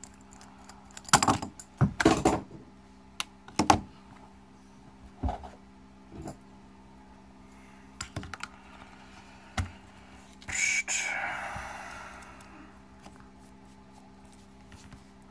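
Scattered clicks and knocks of small hand tools, a screwdriver and then pliers, handled against an RC crawler's wheel and the workbench during a tire change. About ten seconds in a longer scraping rustle fades out over a couple of seconds, over a faint steady hum.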